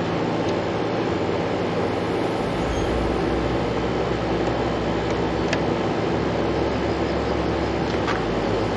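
Steady machine-like drone with a low hum underneath, even in level throughout, with a couple of faint clicks about five and a half and eight seconds in.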